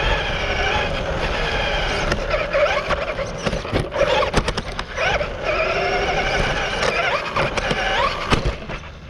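Onboard sound of an RC off-road buggy racing over a dirt track. The motor and drivetrain whine rises and falls in pitch with the throttle, over sharp knocks and rattles from bumps and landings.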